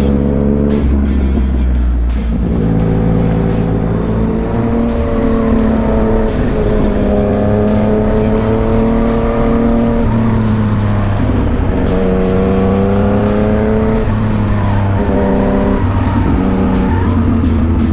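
Yamaha MT-09's inline three-cylinder engine running on the move, its pitch climbing and dropping every few seconds with throttle and gear changes, over a steady low rush of wind.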